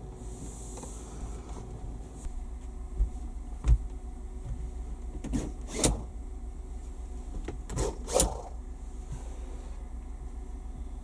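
A handful of sharp knocks and clunks, some in quick pairs, over a steady low hum.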